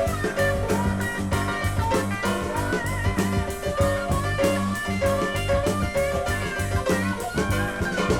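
Instrumental break in an upbeat gospel song with no singing: a band playing a steady beat under a bass line and a melodic lead.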